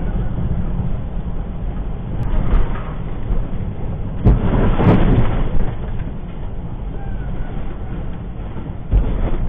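Steady low road and engine rumble inside a moving vehicle on a wet highway. A louder rush of noise comes about halfway through, and a short thump comes near the end.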